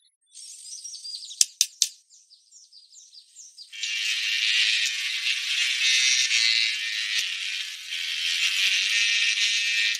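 Three quick sharp taps about a second and a half in, then from about four seconds in a steady dense rattling, like a shaker, with no low sounds.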